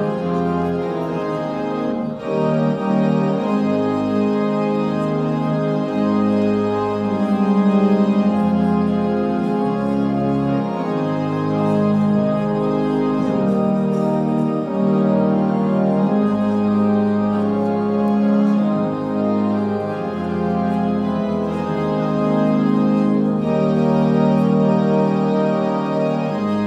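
Organ music: slow, sustained chords that change every second or two.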